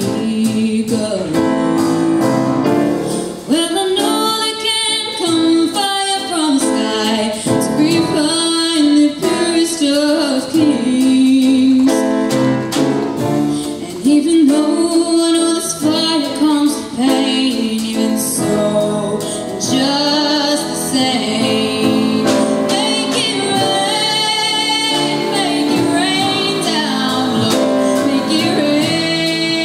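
A girl singing a song into a microphone, with instrumental accompaniment under her voice.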